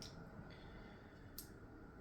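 Near silence with two faint clicks, one at the start and one about a second and a half in: small plastic Lego pieces being handled during building.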